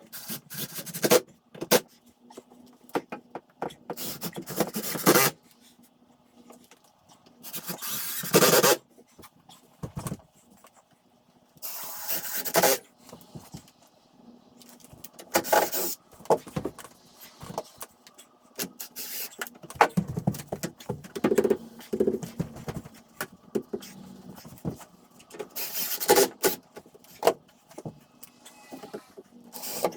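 Woodworking at a wooden stair railing: about five short bursts of a power tool, each under a second or so, between scattered clicks and knocks of handling the wood parts.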